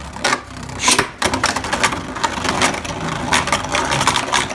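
Two Beyblade Burst spinning tops, Achilles and Valkyrie, whirring and clashing after launch: a dense, continuous rattle of clicks and knocks from repeated collisions.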